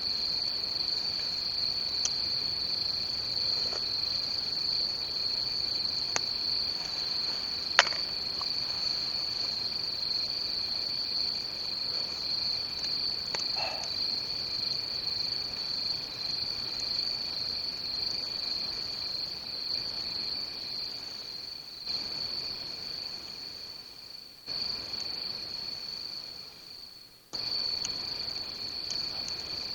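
Crickets trilling steadily in one high, continuous tone with a fainter lower tone beneath it; the trill fades and breaks off twice near the end before resuming. A sharp click about eight seconds in.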